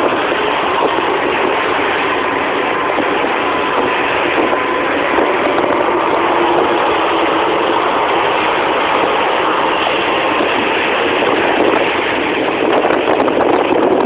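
Speedboat running fast through a rough sea: a steady, loud rush of engine, wind and water against the hull, with a faint steady whine under it for the first half.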